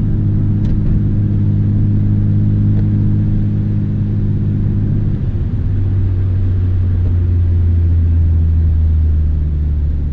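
Nissan Skyline R32 GT-R's RB26DETT twin-turbo straight-six heard from inside the cabin while driving, running at a steady note. About five seconds in the note drops to a lower pitch and holds steady again.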